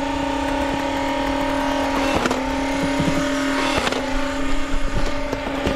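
Motorized Nerf Mega blaster's flywheels spinning at full speed with a steady whine. Two sharp clicks, about two and four seconds in, come with slight dips in the pitch, as darts are fired.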